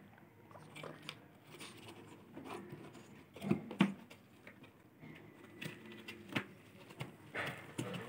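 Scattered scratching and rustling in wood-shavings bedding and cardboard as a young African grey parrot chick shifts about in its box, with a louder bump about three and a half seconds in.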